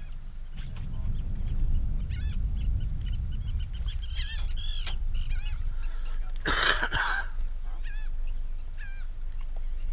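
Birds calling over the water in short, repeated high calls, the loudest about six and a half seconds in, over a steady rumble of wind on the microphone.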